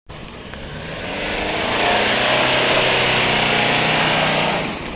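Toyota Land Cruiser 4x4's engine working hard at steady revs as it climbs a dirt slope, with tyres crunching over the ground; it grows louder as the truck comes close and falls away near the end.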